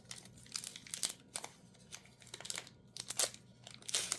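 Crinkly booster pack wrapper being torn open and handled: a quick run of sharp, irregular crackles.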